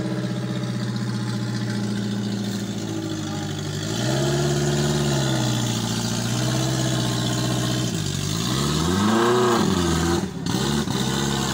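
Daihatsu Taft Hiline off-roader's engine running under load, revved up and back down three times, the third rev the longest and loudest, as the tilted truck tries to climb out of a ditch.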